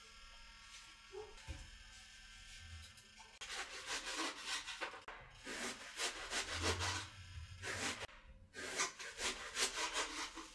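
A hand rubbing and scraping at a plate close to the microphone: a run of rough, rasping strokes begins about three seconds in, with two short pauses.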